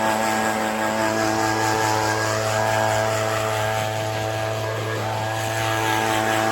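Chainsaw running at steady full throttle in an Alaskan chainsaw mill, ripping a white oak log lengthwise, its pitch held even throughout.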